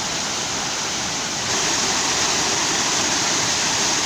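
Waterfall: a steady rush of falling water, which grows a little louder about a second and a half in.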